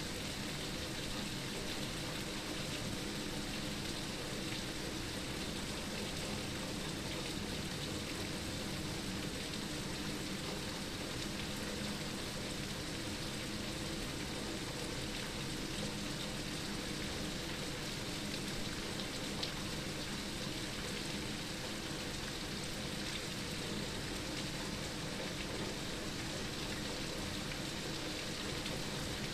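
Steady rain heard from inside a room, an even hiss of falling rain with no change in strength.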